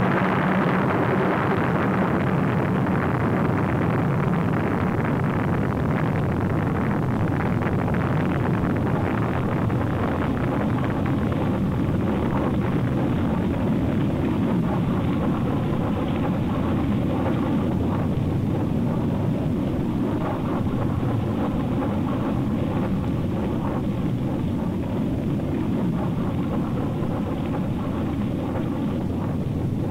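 Thor booster's liquid-fuel rocket engine firing through liftoff and climb: a steady, dense rumble whose higher part slowly fades as the rocket climbs away.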